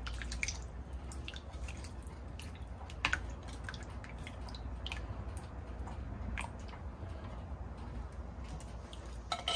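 Metal spoon stirring chunks of beef and sliced onion through broth in a slow cooker's crock: soft wet stirring with a few light clicks of the spoon, the loudest about three seconds in.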